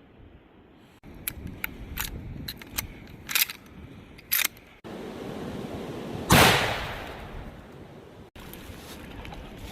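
A series of sharp clicks and clacks, then one loud shot from a Winchester Model 94 .30-30 lever-action rifle, its report dying away over about a second.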